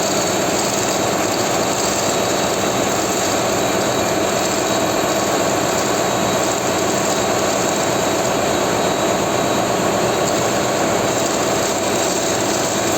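Engine-room machinery running steadily: a loud, even mechanical drone with a constant hum, no starts, stops or knocks.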